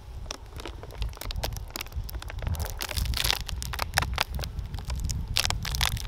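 A woven feed-sack cover glued to the top bars with propolis being peeled back off a beehive, crackling and tearing in many irregular small snaps.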